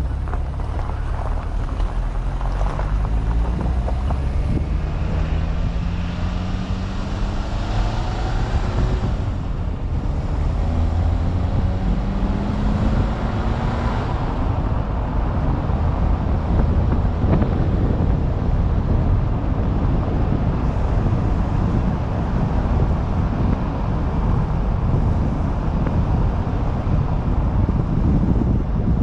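Vehicle driving along a road, with wind buffeting the microphone over a low rumble. The engine note rises as it accelerates, drops at a gear change about ten seconds in, rises again, then settles into a steady cruise.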